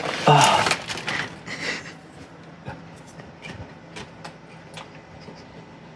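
Microwave popcorn being picked up and eaten: a short rustle, then scattered faint crunches of chewing.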